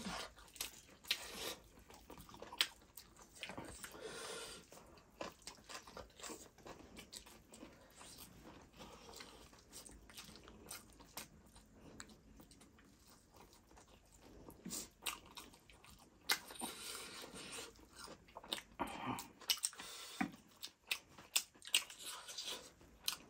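Mouth sounds of two people eating chicken and rice with their hands: irregular soft chewing and crunching clicks, sparse at first and busier in the last third.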